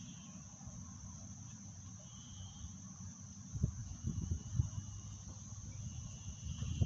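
Insects trilling in high, pulsing spells that come and go over a steady high hiss. A few low rumbling thumps come about three and a half seconds in and again near the end.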